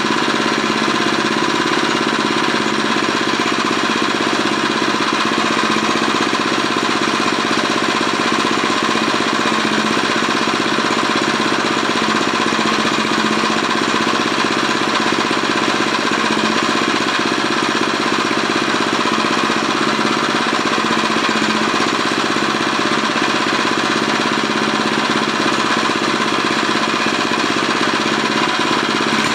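Small gasoline engine of an old garden tiller running steadily with a rapid, even chatter, running again after refusing to start when it had sat all winter.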